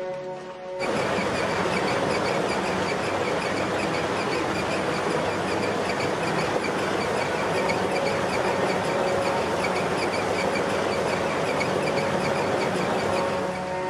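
Ore grinding mill (ball mill) running at a gold processing plant: a dense, steady clatter and rumble of the tumbling charge, with a fast repeating ticking running through it. It starts abruptly about a second in and cuts off shortly before the end.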